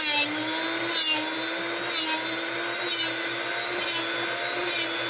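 Drill Doctor drill-bit sharpener running with a steady motor hum, and a short bright grinding burst about once a second as the broken drill bit, turned in the sharpening port, meets the grinding wheel.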